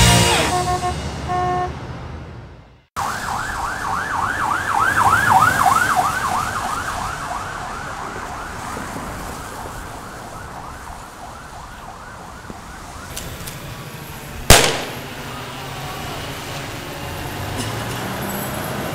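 A siren yelping in quick rising-and-falling sweeps, about four a second, slowing and fading away. Later a single sharp, loud bang, followed by steady street noise. At the start a rock band's last chord fades out.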